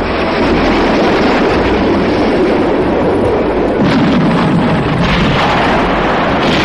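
Loud, continuous rumble of battle: explosions and artillery fire, with sharp cracks about four and five seconds in and again near the end.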